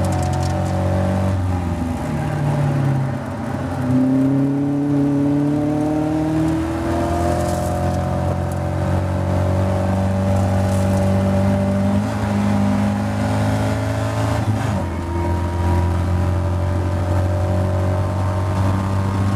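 Caterham Seven race car engine at high revs under hard acceleration, heard from onboard the open cockpit. The pitch climbs steadily, with a dip and fresh rise about four seconds in and another drop about fifteen seconds in, at the gear changes.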